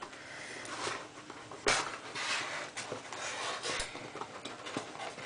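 Cardboard processor box being opened by hand: the end flap is pulled open and an inner cardboard box slides out, scraping and rustling, with a sharp snap of the cardboard a little under two seconds in.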